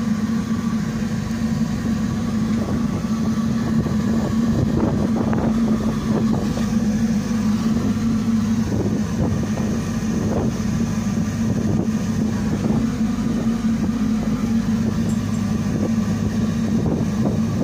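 An engine running steadily aboard a small fishing boat: a low, even hum that holds the same speed throughout.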